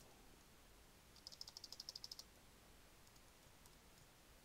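A quick, faint run of about a dozen keystrokes on a computer keyboard, lasting about a second, with a few scattered single key taps around it.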